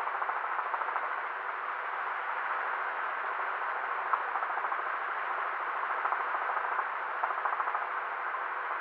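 Helicopter in flight: a steady, dense rush of engine and rotor noise with a fast flutter running through it.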